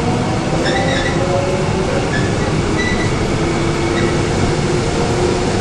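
Korail 3000-series Line 3 electric subway train heard from inside a passenger car while running: a steady loud rumble of wheels on rails with a faint humming tone that drifts slowly in pitch. A few short high squeaks come in the first few seconds.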